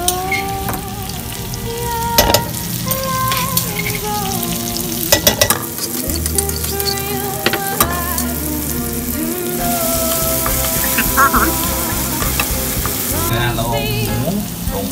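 Pounded garlic, bird's eye chilies and black pepper sizzling in hot oil in a wok, stirred with a wooden spatula, with a few sharp knocks and scrapes. The sizzle grows brighter about ten seconds in.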